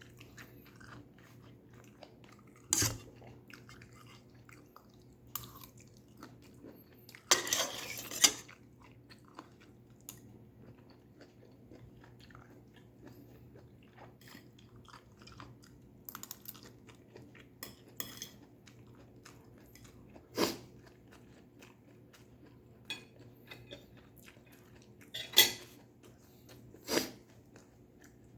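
Close-miked eating of stir-fried vegetables: soft chewing and crunching, broken now and then by a few louder clinks and scrapes of utensils against a dish.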